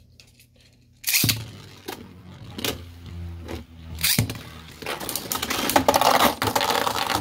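Beyblade spinning tops launched one after the other into a plastic stadium. The first lands with a sharp clack about a second in and whirs low and steady on the floor, and the second lands with another clack about four seconds in. Near the end the two tops clash and scrape against each other and the stadium in rapid rattling hits.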